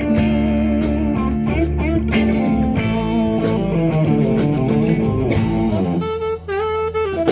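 Live blues band playing, with guitar leading. Near the end the low end drops back and a wavering high line stands out.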